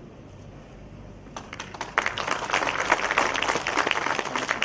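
Audience applauding: the clapping starts about a second and a half in and is loud and dense by about two seconds in.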